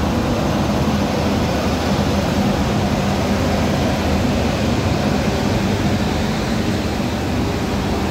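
Indian Railways electric locomotive, followed by its AC passenger coaches, rolling in past the platform: a steady rumble of wheels on rail with a low hum.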